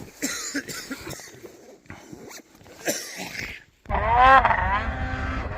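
Snowmobile engine revving up hard, cutting in abruptly about four seconds in with a steeply rising pitch, then running on at high speed. Before it, a few scattered rustles and knocks.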